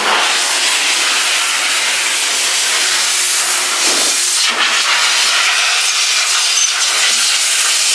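Powerful 8-horsepower car-drying air blower running, a loud steady rush of air blasting water off the wheels and out of the crevices of a freshly washed truck. The blast shifts briefly about halfway through as the nozzle is moved.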